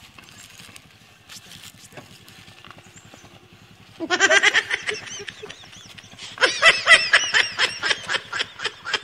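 Loud laughter in rapid, repeated ha-ha bursts that breaks out suddenly about four seconds in and swells again about two seconds later. Before it there are only faint outdoor sounds with a few light clicks.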